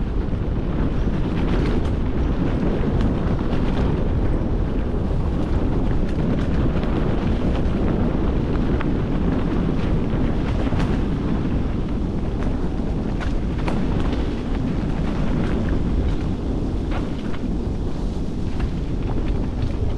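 Wind buffeting the microphone of a moving camera, a steady low rumble, with scattered knocks and rattles from travelling over a rough forest trail.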